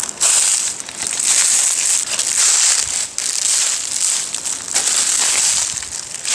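Footsteps crunching through dry leaf litter, one step about every second.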